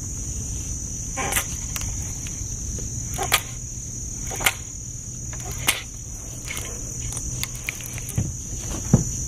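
Steady high-pitched drone of insects such as crickets. Over it come several sharp clicks spaced a second or so apart, then two dull knocks near the end.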